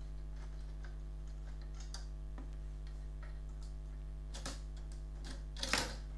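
Light plastic clicks and ticks as the plastic cover pieces of a LiFePO4 battery pack's bracket are worked loose by hand, with a louder clack and rustle near the end, over a steady low electrical hum.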